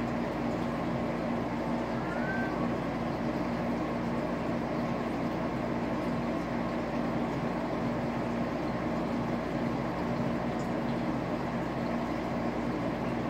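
Steady hum of running aquarium equipment, an even whirring noise with a low droning tone. One short high rising squeak sounds about two seconds in.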